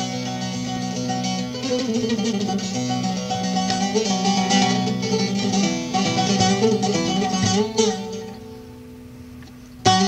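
Solo bağlama (Turkish long-necked saz) playing a free improvised melody, plucked notes over steady ringing drone notes. About eight seconds in the notes die away and it goes quiet for a moment, then a new phrase starts with a sharp, loud strike at the end.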